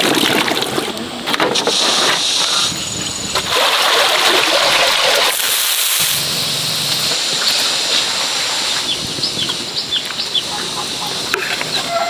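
Sliced green fruit tipped from a basket, splashing into a basin of water, followed by a steadier sound of a wok of stew bubbling on the boil. Short high chirps come near the end.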